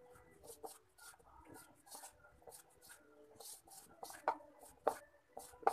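A hand rubbing and squeezing dry, crumbly wheat flour in a bowl: faint, scratchy rustling in short strokes, with a few sharper clicks from fingers against the bowl near the end.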